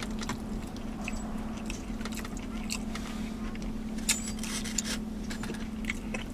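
Close-up mouth sounds of a person chewing and eating braised oxtail: scattered wet smacks and small clicks, the sharpest about four seconds in, over a steady low hum.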